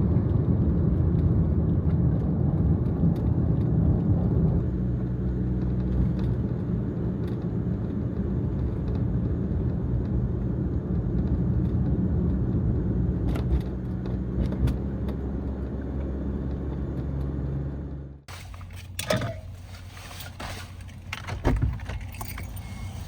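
Kei van's engine running steadily, heard from inside the cabin, then switched off about eighteen seconds in. Light clicks and small rattles follow.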